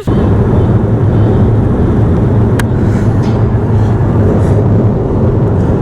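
Car moving at speed: a loud, steady rumble of road and engine noise, with a single short click about two and a half seconds in.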